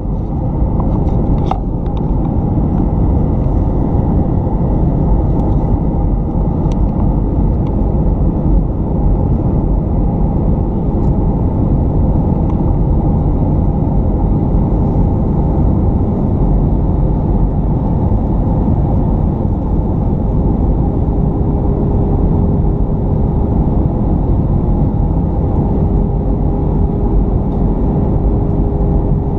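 Jet airliner cabin noise in flight, heard at the window seat: a loud, steady low rush of engine and airflow. A faint steady hum tone joins about twenty seconds in.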